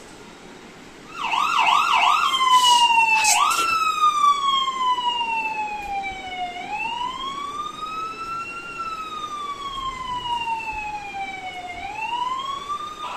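Electronic emergency-vehicle siren sound playing, starting about a second in with a few quick yelping warbles, then changing to a slow wail that falls, rises and falls again. Two short bursts of noise cut through it just after the warbling.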